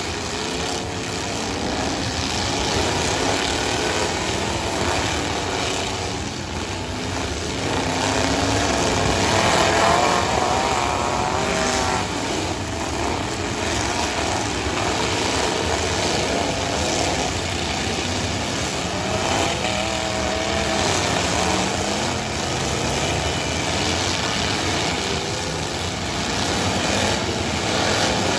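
Several pickup truck engines running and revving together in a demolition derby, pitches rising and falling as the drivers accelerate and back off, over a steady loud din.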